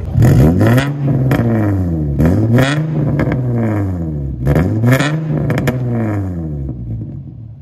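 Infiniti G35 sedan's VQ35DE V6 revved three times through its exhaust. Each rev climbs in pitch and falls back toward idle, and the engine note drops away near the end.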